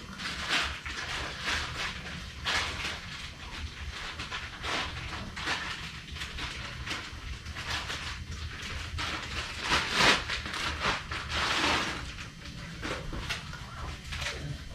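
Irregular metallic clinks, taps and scrapes of engine hardware being handled as cam caps and their bolts go onto the exhaust camshaft, the loudest clatter about ten seconds in, over a steady low hum.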